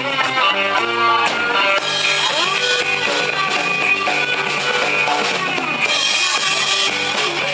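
Instrumental passage of a rock song: guitar over a drum kit, with no singing.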